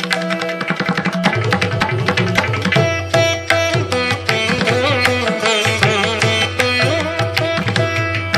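Instrumental background music in an Indian classical style: hand drums keep a steady beat under a plucked-string melody whose notes bend in pitch.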